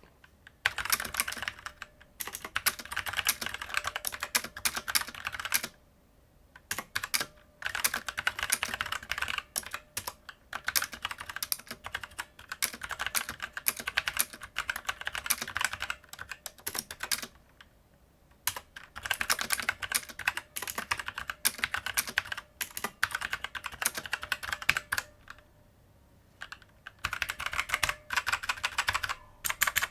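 Typing on a Gaming Freak MXRGB9 budget mechanical keyboard fitted with a mix of Outemu brown switches on the letter keys and clicky Outemu blue switches on the rest: fast runs of key clicks and clacks with a few short pauses.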